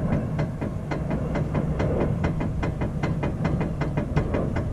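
Rapid, regular clicking and clunking, about four to five knocks a second, from a worn tie rod end on a Ford F-150's front steering as the raised wheel is rocked side to side by hand: the play means the tie rod end needs replacing. A steady low hum runs underneath.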